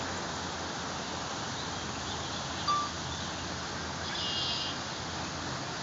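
Steady outdoor background noise with two short high sounds: a single clear note about two and a half seconds in, and a brief high trill a little after four seconds.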